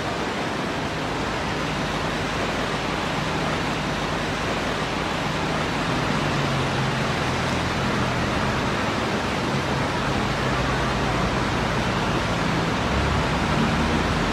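Floodwater running across a paved street, a steady rushing noise. From about halfway in, a vehicle engine's low hum joins and grows as a bus drives through the water.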